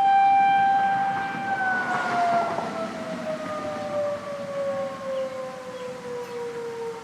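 Federal Signal 2001 outdoor warning siren holding a steady tone, then winding down from about a second and a half in, its pitch sliding slowly lower and its sound fading as the rotor coasts to a stop.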